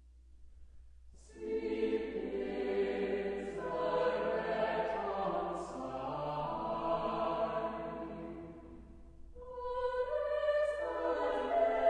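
Background choral music. It comes in about a second in after near silence, swells, fades briefly near the end, then a new phrase begins.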